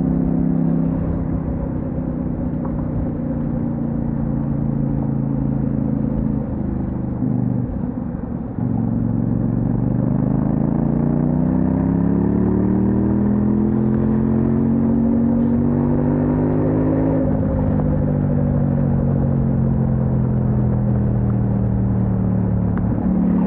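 Kove 800X Pro's parallel-twin engine under way, heard from the rider's seat. It eases off and dips early on, then pulls hard with a steadily rising pitch for about eight seconds, drops abruptly as the throttle closes or a gear is shifted, and settles into a cruise with its pitch slowly falling.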